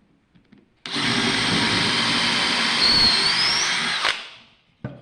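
Power drill boring a hole fairly deep into a wooden clamp block, running steadily for about three seconds from about a second in, then stopping, with a couple of small clicks near the end.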